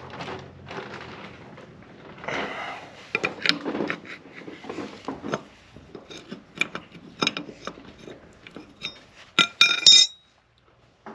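Steel spanner clinking and scraping on the castle nut of a Massey Ferguson 35's front wheel hub: a run of sharp metallic clinks with short ringing tones, loudest in a quick cluster near the end, then stopping abruptly.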